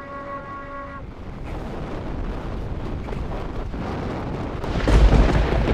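A held electronic tone for about the first second, then the rumbling roar of a large breaking ocean wave and its whitewater, building up and loudest near the end.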